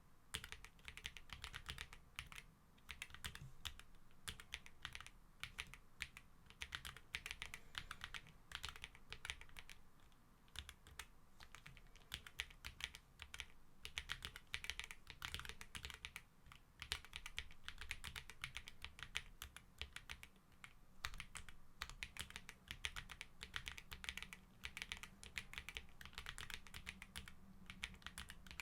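Continuous typing on a Graystudio Space65 R3 mechanical keyboard with G-Square White Knight switches: a rapid, steady patter of keystroke clicks in runs, easing briefly every second or two.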